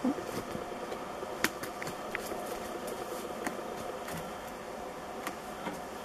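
Steady buzzing hum of a large honey bee swarm clustered on a cut white fir branch close by, with a few sharp clicks scattered through it.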